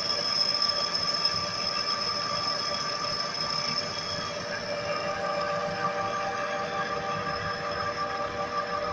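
Manual metal lathe running while its cutting tool turns the face of a large aluminum pulley blank, giving a steady whine of several held tones over the machine's running noise. The pitch mix shifts slightly about halfway through.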